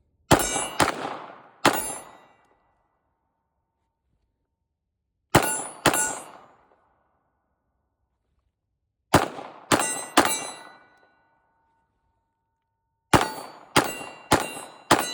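Palmetto State Armory Sabre 9mm pistol firing steel-case rounds in quick strings of follow-up shots: three, then two, then three, then four shots. Each shot is followed by a short metallic ring.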